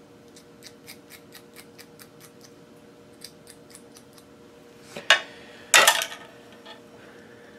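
Hand tools being handled on a hard work board: a run of light, evenly spaced metal clicks, about four a second, then two louder, short scraping clatters about five and six seconds in, over a steady low hum.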